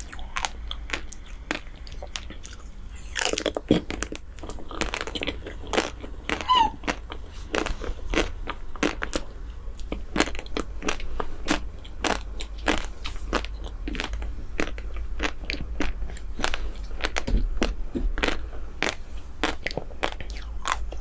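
Close-miked eating sounds of chocolate desserts: irregular crisp crunches and crackles of a chocolate-coated ice cream bar's shell, along with wet chewing.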